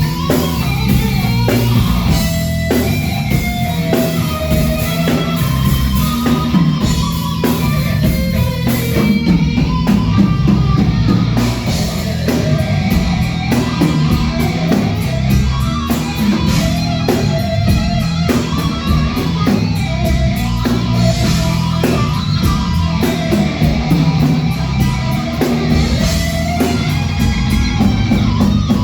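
Thrash metal played on electric guitars and a drum kit, loud and steady throughout, with fast, even high drum strokes coming in about a third of the way through.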